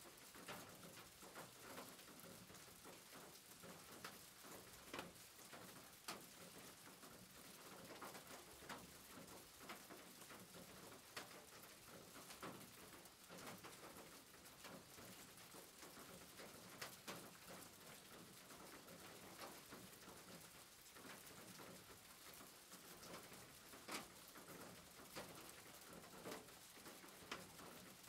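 Faint rain on a roof: a steady hiss of rainfall with scattered louder drops ticking at irregular intervals, about one a second.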